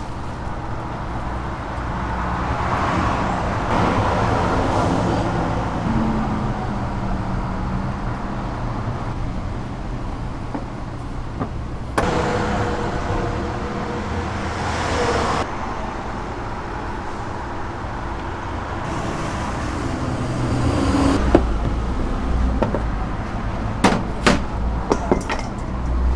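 Kitchen background of a street-snack shop: a steady low rumble and hum under soft rustling as gloved hands toss squid and other pieces in a tub of flour. Near the end, a few sharp clicks and clatters as cut vegetables are tipped from a plastic tub into a steel mixing bowl.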